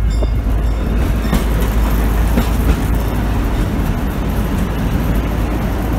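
Mine ride train rolling along its track: a steady low rumble and rattle with no break.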